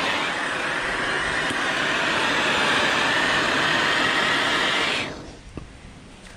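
Handheld gas blowtorch burning with a loud, steady hiss as its flame heats a cow's hoof before a block is glued on. The hiss cuts off suddenly about five seconds in as the torch is shut off.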